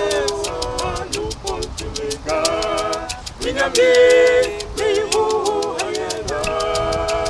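Gospel singing by voices over a rattling percussion beat that clicks steadily several times a second.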